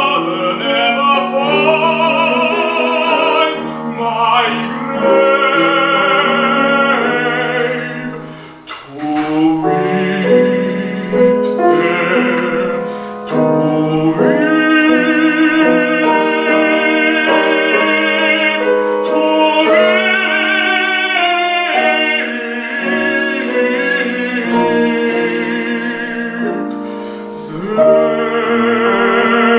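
A classical tenor singing an art song with wide vibrato, accompanied by piano. The music briefly thins out about eight seconds in.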